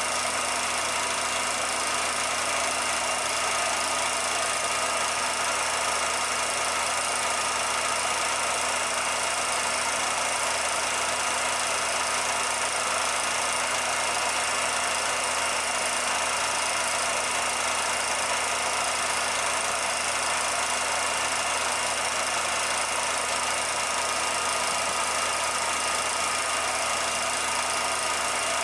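16mm film projector running during the transfer of a silent film: a steady mechanical whir with a few fixed tones, at an even level throughout.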